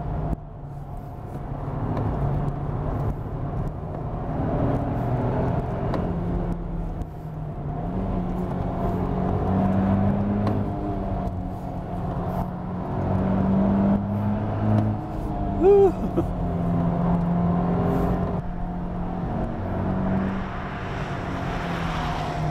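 Nissan Fairlady Z's 3.0-litre V6 twin-turbo engine running from inside the cabin, its note rising and falling with the throttle over road noise. A short sharp chirp about three-quarters of the way through.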